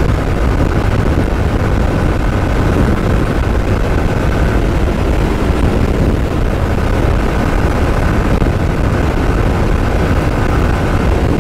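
Sport motorcycle running steadily at highway speed, around 88 km/h: an even engine drone mixed with heavy wind rush on the microphone.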